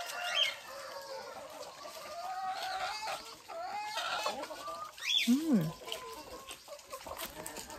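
Chickens clucking, short wavering calls one after another, with a louder call about five seconds in that rises and then falls.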